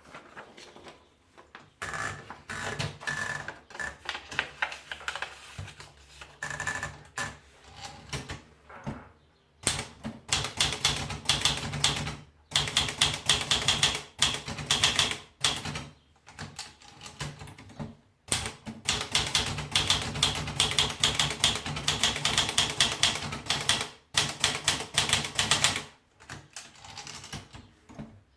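Olivetti Dora manual portable typewriter being typed on: fast runs of key strikes with short pauses between them.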